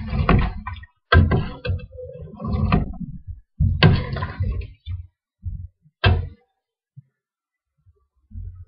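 Three sharp knocks, about two and a half seconds apart, with lighter clatter between them.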